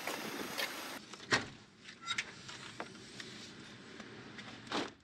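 Outdoor background noise, then a few sharp clicks and knocks inside a small van, loudest about a second in, with a longer knock and rustle near the end.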